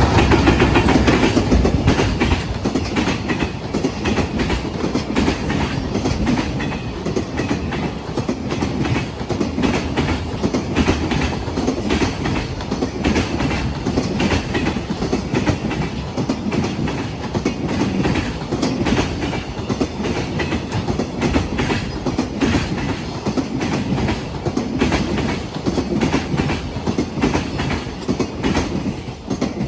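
Freight train wagons running over rail joints: a loud, continuous clatter of wheel knocks, loudest in the first couple of seconds.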